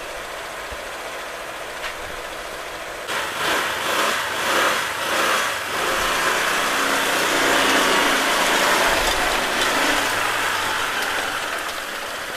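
Motor scooter engine idling, then getting louder from about three seconds in as the scooter pulls away and rides slowly, running with a rushing noise that eases slightly near the end.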